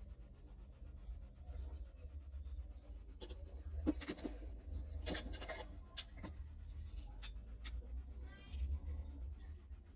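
Light clicks and short scratching sounds of small hand tools, such as tweezers or probes, working on a phone's circuit board, mostly in the middle of the stretch, over a steady low hum.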